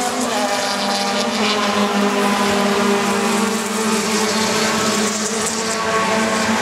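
1600 cc touring race car engines running, a steady drone of engine tones that holds level without rising or falling.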